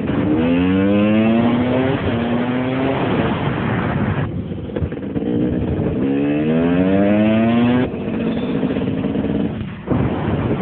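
Dirt bike engine accelerating hard twice, its pitch climbing steeply and then levelling off; the second run cuts off abruptly about eight seconds in.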